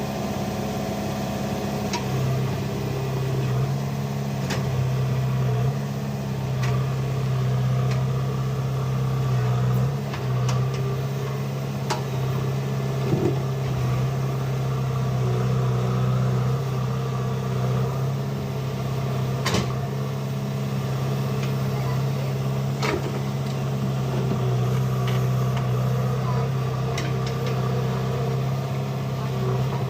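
Diesel engine of a JCB 3DX backhoe loader running steadily with a deep, even hum, with a few sharp clanks scattered through it.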